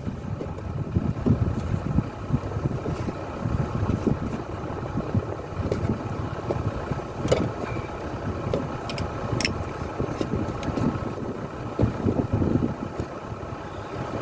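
Hitachi Zaxis excavator's diesel engine idling with a steady, uneven low rumble, and a few sharp metallic clicks around the middle.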